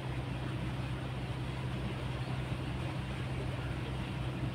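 Steady low mechanical hum, like an engine running at a constant speed, under a faint even hiss of background noise.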